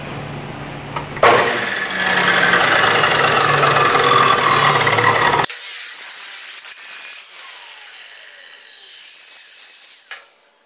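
Abrasive cutoff saw (chop saw) running, then its cutting disc grinding through steel tubing for about four seconds. The grinding stops abruptly and the coasting wheel's whine falls slowly in pitch as it spins down, with a click near the end.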